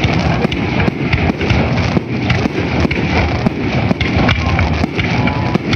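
Fireworks going off in a rapid, continuous barrage: many sharp bangs and crackles in quick succession over a low rumble.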